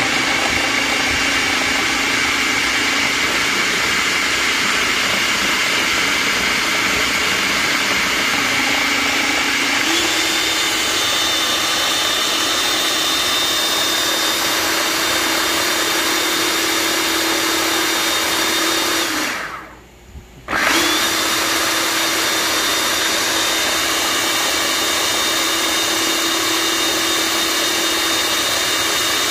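Electric food processor blending garlic, ginger and green herbs with a little water into a wet paste: a steady motor whine that steps up in pitch about ten seconds in. It cuts out for about a second near twenty seconds, then starts again.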